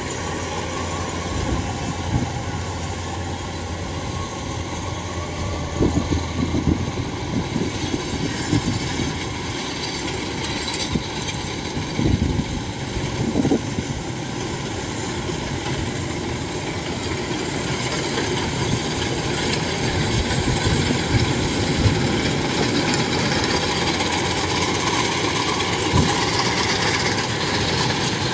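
Kubota DC-93 rice combine harvester running steadily under load while cutting rice, a constant mechanical drone from its engine and threshing machinery, with a few short low thumps.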